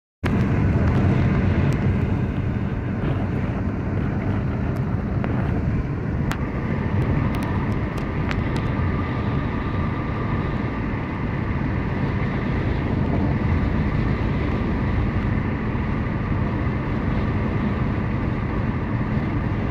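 Steady low rumble of tyres and engine heard inside a moving car's cabin, with a few faint clicks near the middle.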